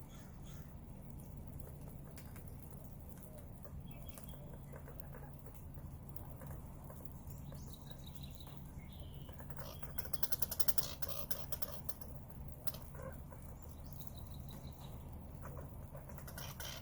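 Birds chirping and calling over a steady low hum, with a loud, rapid rattling trill about ten seconds in.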